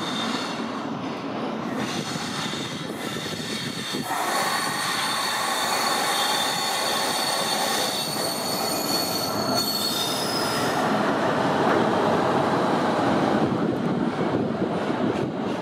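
Class 60 diesel locomotive hauling a train of tank wagons past at low speed, with high-pitched wheel squeal on the rails. The squeal sets in about two seconds in and fades out about eleven seconds in, while the rumble of the passing train grows louder from about four seconds in.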